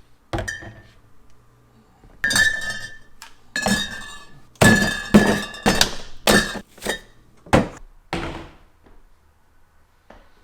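A series of hard knocks and clinks, about a dozen, several with a short ringing tone, like hard objects being struck or set down against one another; they stop about eight seconds in.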